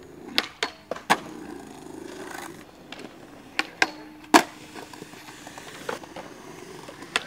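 Skateboard wheels rolling on concrete with a series of sharp clacks, then a trick on a steel handrail: a short grind along the rail and a loud clack of the board hitting the ground about four seconds in, followed by more rolling and clacks.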